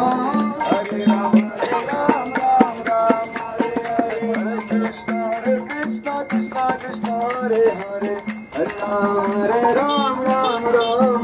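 Hindu devotional song: a voice sings a bending melody over a steady low drone, with jingling hand percussion striking many times a second. Everything breaks off briefly about eight and a half seconds in, then resumes.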